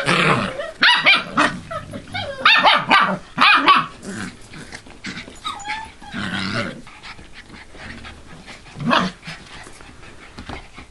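Siberian husky puppies yipping and barking in play: a quick run of high yips for about the first four seconds, then a few scattered, quieter calls, with one louder yip near the end.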